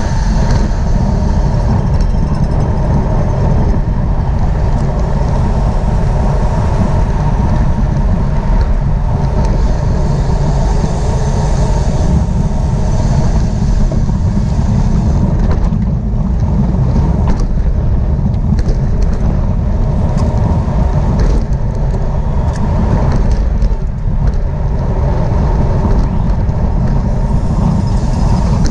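Wind rushing over the microphone of a camera riding along in a bicycle road race, a loud, steady low rumble.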